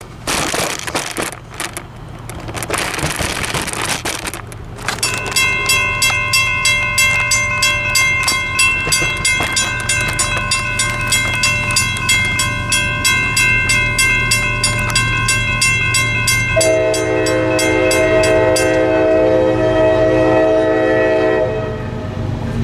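A railroad crossing bell starts about five seconds in and rings with quick, even strikes as the crossing lights flash and the gates come down. About sixteen seconds in, the approaching lead locomotive, a Union Pacific SD70ACe-T4, sounds a long chord on its air horn for about five seconds over the bell. Before the bell starts there is only a rough rush of noise.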